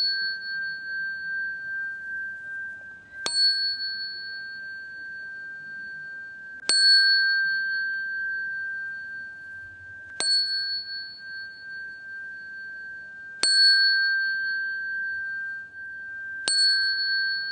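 Small Buddhist qing bell struck five times, about every three and a half seconds, each strike a sharp tap followed by a steady high ringing that lasts until the next. The strikes mark the bows of the ritual bowing to the Buddha.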